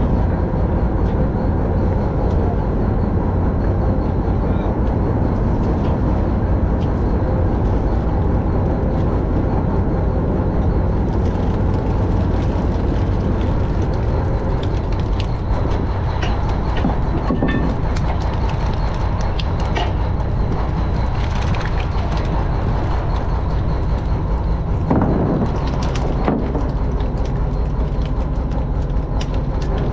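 Fishing boat's engine running with a steady low drone throughout. From about ten seconds in, scattered knocks and clatter from the catch being emptied onto the deck and handled.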